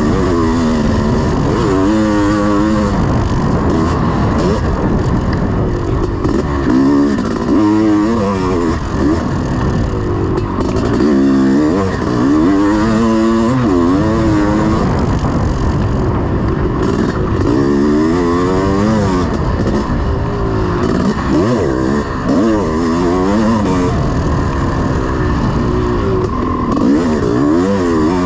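1986 Honda CR500's two-stroke single-cylinder engine under hard riding, its pitch repeatedly climbing and dropping every few seconds as the throttle is opened and shut and gears change. Loud throughout.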